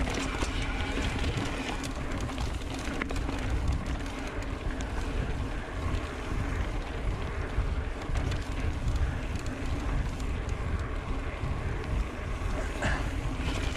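Mountain bike riding a dirt singletrack: wind noise on the microphone over the hiss of the tyres on the trail, with scattered clicks and rattles from the bike over bumps.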